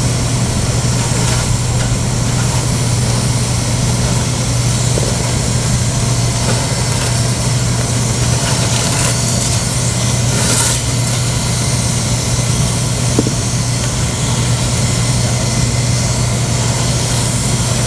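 Hand-held hot-air plastic welder running steadily, a constant blower drone and hum with an airy hiss, as it heat-welds a PVC/TPO roofing patch. A brief louder hiss comes about ten and a half seconds in.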